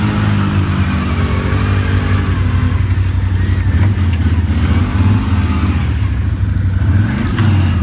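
ATV engine running steadily under throttle, a loud, even low drone.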